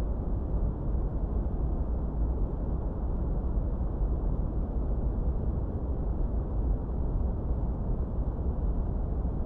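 Steady noise played for studying: a deep, muffled hiss, heaviest in the bass with little top end, closer to brown noise than to bright white noise, and unchanging.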